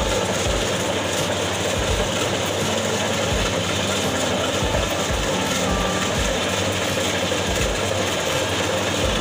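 Kubota DC35 rice combine harvester running steadily under load as it cuts and threshes standing rice. Its diesel engine and threshing drum make a continuous mechanical din, with irregular low thumps throughout.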